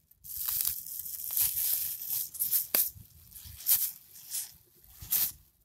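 Thin red plastic parcel bag being pulled and torn open by hand: irregular crinkling of plastic with a few sharper rips.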